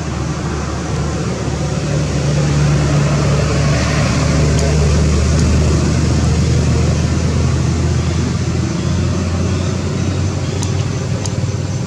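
Steady low hum of an engine running, under a broad rush of noise, a little louder for a few seconds in the middle; a couple of faint clicks near the end.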